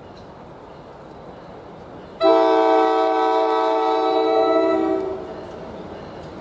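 An NJ Transit commuter train's air horn gives one long blast of about three seconds as the train approaches the station. The blast starts about two seconds in, sounds several notes at once as a chord, and fades out.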